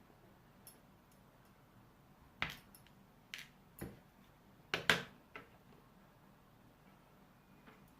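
Small metal clicks and clinks of lock parts and tools being handled and set down on a hard surface. A faint tap comes first, then sharper clinks scattered through the middle, the loudest two together just before five seconds in.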